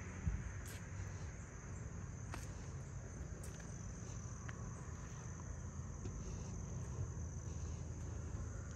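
A steady, high-pitched insect chorus, such as crickets, runs unbroken over the low rumble and scuffs of walking with a hand-held camera. A sharp knock sounds just after the start, and a few faint clicks come later.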